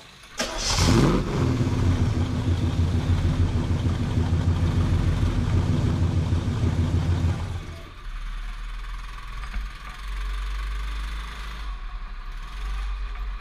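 Go-kart petrol engine starting up about half a second in with a quick rise in pitch, then running steadily and loudly; about eight seconds in it drops abruptly to a quieter, steady running sound.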